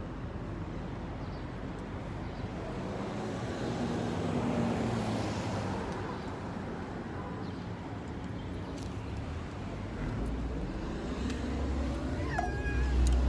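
A cat meows once near the end, a short call that bends in pitch, over a steady rumble of traffic that swells twice.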